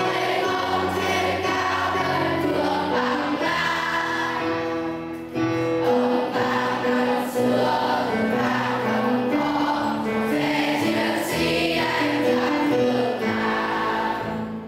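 A group of young girls singing a song together in chorus, fading out at the very end.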